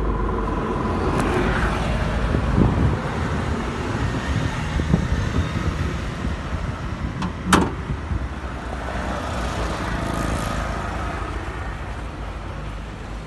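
Road traffic noise with a steady rumble of passing vehicles, and one sharp click about halfway through.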